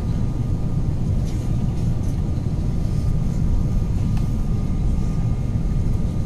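Steady low rumble of engine and airflow noise inside the passenger cabin of an Airbus A350-900 descending on approach, with a faint steady whine above it.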